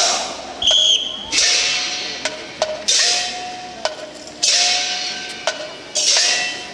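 Festival percussion for a Chinese ship float: loud ringing crashes every second or two that die away slowly, with sharp clacks and short ringing tones between them. A short high whistle sounds about a second in.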